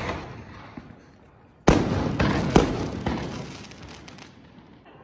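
Fireworks going off: a sharp bang about a second and a half in, then a crackle that dies away over a couple of seconds, with a second crack soon after the bang.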